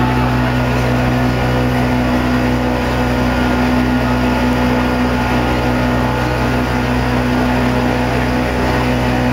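Motorboat engine running steadily under way, a constant low drone with the rush of water along the hull.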